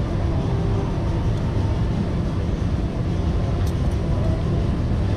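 Steady low rumbling background noise with no clear pitch, and two faint light clicks near the end.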